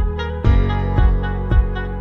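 Background music with a steady beat of about two beats a second over held notes.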